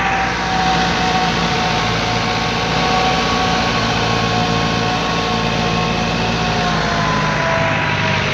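Massey Ferguson tractor's diesel engine running hard and steady, hauling a trolley out of deep mud by a chain. A high whine rides over the engine and sinks slowly in pitch toward the end as it labours.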